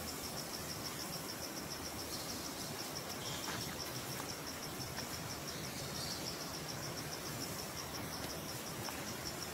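An insect chirping in a fast, even series of high pulses, over a steady outdoor hiss.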